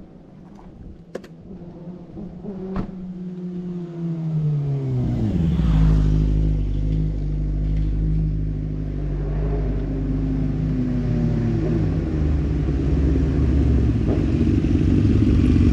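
A vehicle engine running. Its pitch falls about four to five seconds in, then it runs at a steady lower pitch with a heavy rumble that grows louder toward the end; a couple of sharp clicks sound in the first few seconds.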